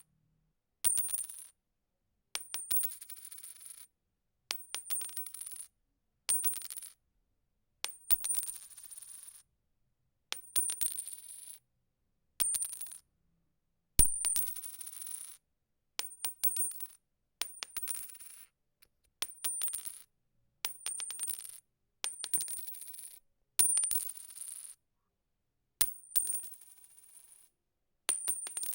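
A coin dropped again and again in separate takes, about every one and a half to two seconds. Each drop starts with a sharp clink and a few bounces that quicken into a short spinning rattle, with a high metallic ring, and fades within about a second.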